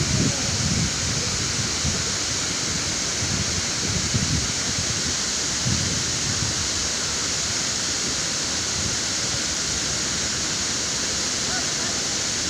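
Dudhsagar Falls, a large waterfall, rushing with a steady, even noise, with a few low rumbles in the first several seconds.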